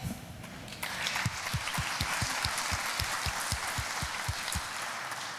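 Audience applause, building about a second in and holding steady, with low thuds about four a second beneath it.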